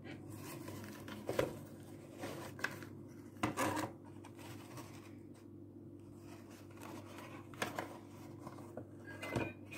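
Gloved hands handling an old cardboard box and sliding a small plastic loudspeaker out of it: a series of short scrapes and rubs of cardboard against plastic, over a steady low hum.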